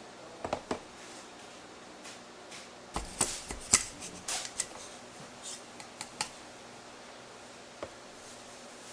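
Irregular sharp clicks and taps of small objects or tools being handled, bunched most densely about three to four and a half seconds in, with a few scattered before and after.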